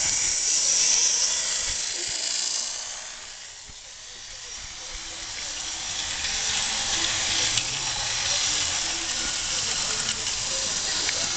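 Model train running past close by: the locomotive's small electric motor whirring and its wheels rattling on the track, then the coal hopper wagons rolling by with faint clicks over the rail joints. The sound dips about four seconds in and builds again as the wagons pass nearest.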